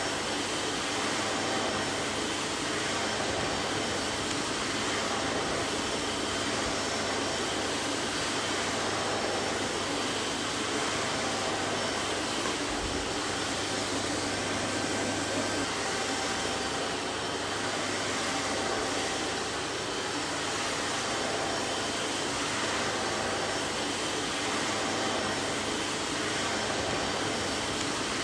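Vacuum cleaner running steadily: an even, unbroken rushing noise with a faint motor hum and whine, no change in pitch or level.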